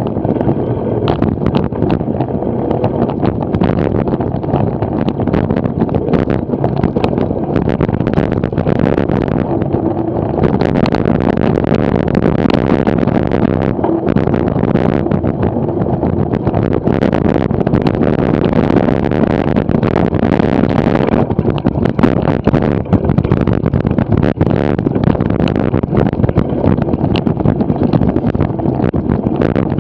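Wind buffeting the microphone of a camera mounted on a cyclocross bike, over the rumble of tyres on a sandy dirt track and a constant rattle of many small knocks.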